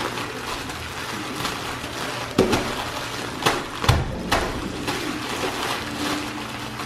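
Cakes being smashed up with utensils in cups or bowls: scattered crunching and handling noise with a few sharp knocks, the heaviest a dull thump about four seconds in.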